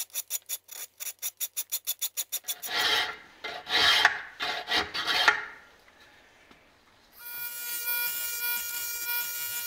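Round file rasping against a small steel ring held in a vise, in quick even strokes at about six a second, then a handful of slower, heavier strokes. After a short quiet gap a bench grinder starts and runs with a steady whine.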